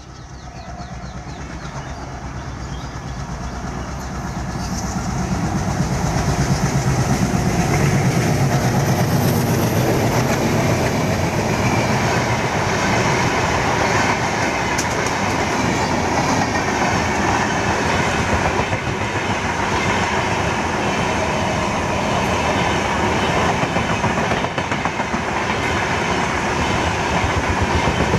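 Diesel-hauled passenger train running past, an ALCO diesel locomotive followed by its coaches, with wheels clattering over the rail joints. It grows louder over the first several seconds, then holds loud and steady as the coaches go by.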